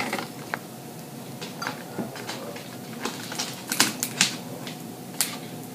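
Crab legs being broken open and picked by hand: crab shell cracking and snapping in a scattering of short, sharp clicks at irregular intervals.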